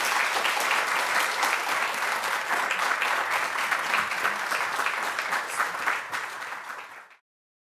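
Audience applauding, many hands clapping together. It fades slightly and then cuts off abruptly near the end.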